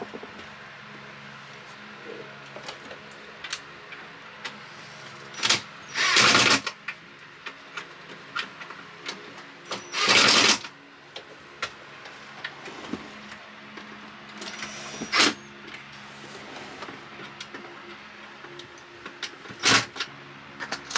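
Ryobi cordless drill running in short bursts as it bores screw holes: two longer runs of under a second and a few brief blips. A steady low hum runs underneath.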